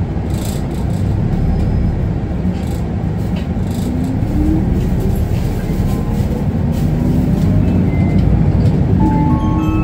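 Running sound of an Isuzu Erga 2RG-LV290N3 city bus heard from inside the cabin: a steady diesel and road rumble, with a rising whine from about three and a half seconds in as the bus picks up speed. Near the end a rising series of electronic chime tones begins.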